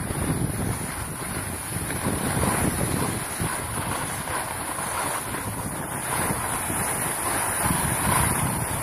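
Wind buffeting the microphone of a camera moving downhill, a gusting rumble over a steady rush, with the hiss of skis sliding on snow.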